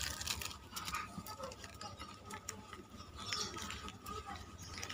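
Instant noodle seasoning sachets, plastic and foil, crinkling and crackling as they are handled, torn and squeezed out over a ceramic bowl, with a string of small irregular clicks.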